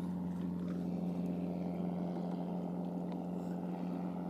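A boat's motor running steadily with a constant low hum.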